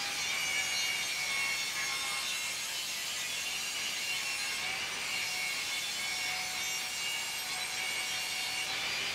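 Table saw ripping a thin wooden strip lengthwise, the blade cutting steadily and without a break.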